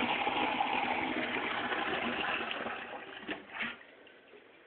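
Toilet flushing: water rushing into the bowl, tapering off about three seconds in and dying away about a second later.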